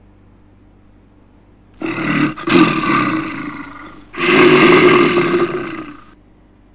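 Two loud, rough animal roars of about two seconds each, the second following right after the first.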